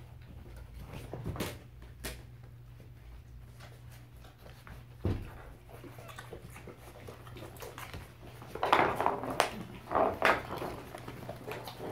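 A mother dog and her five-week-old puppies feeding, the puppies nursing and a dog eating at a food bowl: a few scattered knocks, then a louder cluster of short sounds about nine to ten seconds in.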